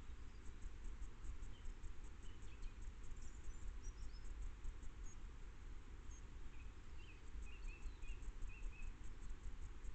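Song thrush singing faintly in the distance, short clear phrases with a run of quick notes about three-quarters of the way through, over a steady low background rumble.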